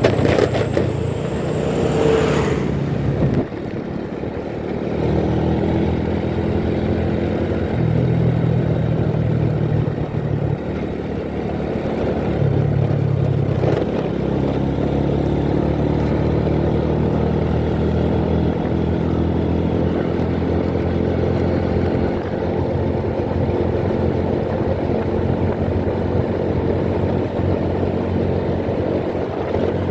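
Motorcycle engine running while riding on the road, its pitch stepping up and down several times with throttle and gear changes. A brief rush of noise comes in the first three seconds.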